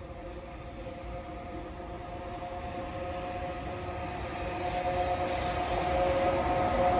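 Electric locomotive hauling a freight train approaches, with a steady two-note whine over the running noise, growing steadily louder as it nears.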